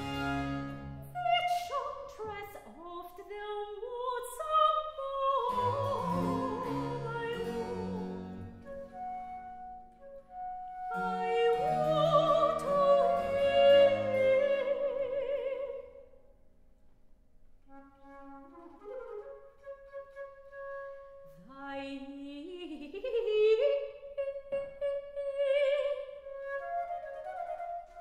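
Baroque aria performed live: a soprano singing with vibrato, alternating and twining with a wooden baroque transverse flute, over a small period string ensemble with harpsichord. The music drops to a quiet, sparse passage a little past the middle before the voice comes back in.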